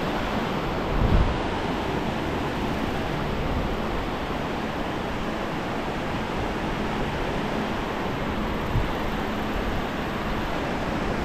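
Ocean surf washing steadily on the beach, with wind on the microphone. There is a brief low buffet about a second in and another near the end.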